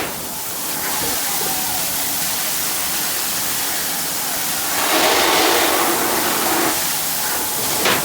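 Steady rushing hiss of water spraying from a fire hose, louder for a couple of seconds about five seconds in.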